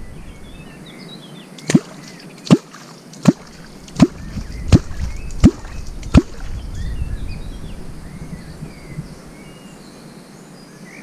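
A catfish clonk struck on the water seven times, about one stroke every three-quarters of a second. Each stroke is a short plop dropping in pitch, the call used to draw wels catfish to the bait. Birds chirp faintly.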